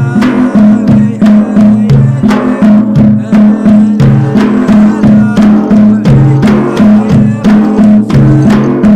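Traditional Saudi 'ardah music: drums beating a steady, driving rhythm under men's voices chanting in unison.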